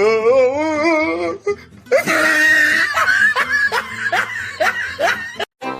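A person laughing in a run of short rising bursts over background music, opened by a long wavering pitched call. It cuts off abruptly near the end.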